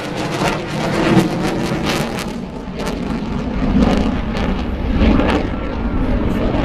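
Eurofighter Typhoon's twin Eurojet EJ200 turbofan engines during a display pass: a loud, crackling jet rumble that swells about four and five seconds in.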